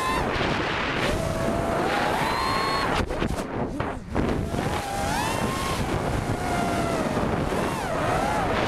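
Cobra 2204 2300KV brushless motors of a 5-inch FPV freestyle quadcopter, heard from its onboard camera: a whine that glides up and down with the throttle over wind rush on the microphone. About three to four seconds in the whine drops away briefly as the throttle is cut, then climbs again.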